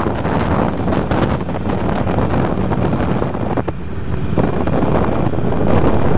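Wind rushing over the microphone at road speed, mixed with the Harley-Davidson Iron 883's air-cooled V-twin engine running steadily underneath. The wind eases briefly about four seconds in.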